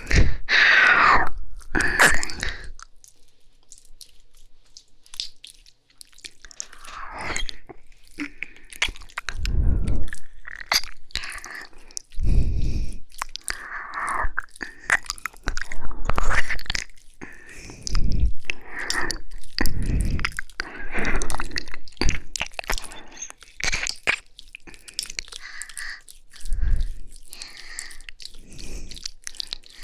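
Wet ear-licking and kissing mouth sounds close to the microphone: smacks and clicks in irregular bursts, with occasional low thumps. There is a quieter spell a few seconds in.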